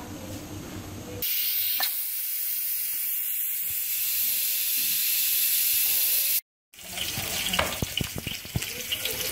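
Steam hissing steadily from an aluminium pressure cooker's vent as it cooks on a gas flame. After a short break, metal clicks and knocks as the lid handle is worked to open the cooker.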